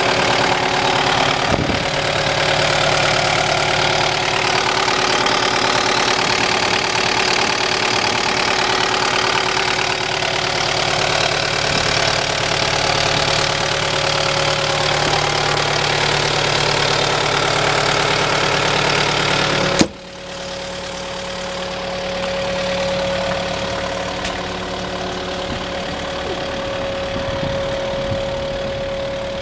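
An engine running steadily at idle. About twenty seconds in there is a sharp click and the sound drops, running on quieter with less hiss.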